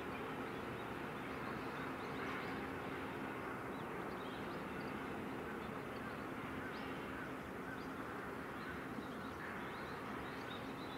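Dockside ambience: a steady low mechanical hum under a broad rumble, with faint short bird calls over it.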